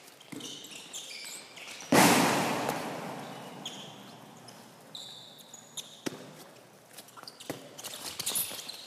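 Handball practice sounds in a large sports hall: sneakers squeaking on the wooden court and balls bouncing. One loud bang about two seconds in echoes and dies away slowly through the hall.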